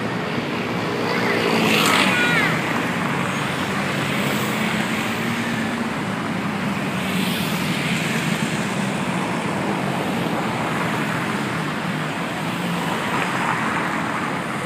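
Dense city road traffic: a steady wash of car and van noise with an engine's low hum, loudest about two seconds in.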